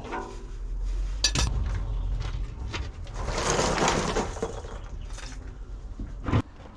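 Metal tools and parts clinking and clattering during a bus oil change, with a noisy rush about three seconds in and a sharp knock near the end.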